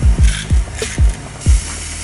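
Background music with a steady electronic beat: a deep kick drum about twice a second over a bass line.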